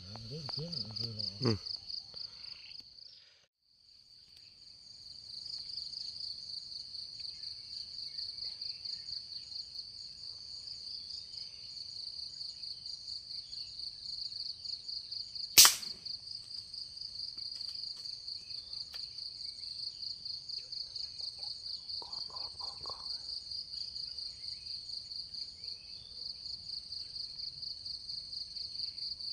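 A chorus of forest insects keeps up a steady, high, pulsing drone, broken off briefly a few seconds in. About halfway through comes a single sharp crack, much louder than anything else.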